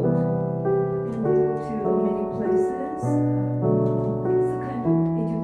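Background piano music, slow and gentle, with sustained chords changing about once a second.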